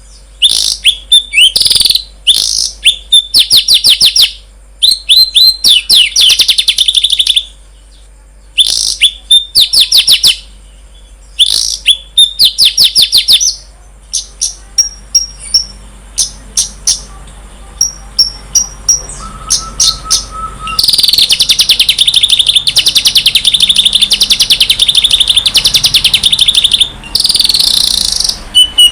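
Songbird singing in quick bursts of high, rapid chirps and trills. About two-thirds of the way through, this runs into a long, unbroken fast trill.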